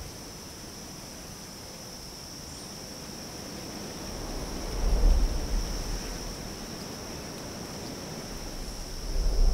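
Steady high chirring of crickets as an outdoor ambience bed, with a low rumble that swells about halfway through and again near the end.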